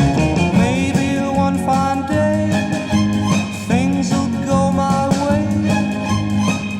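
A 1960 pop record playing a passage without recognised words: sliding, gliding melody notes over sustained bass notes and a steady backing.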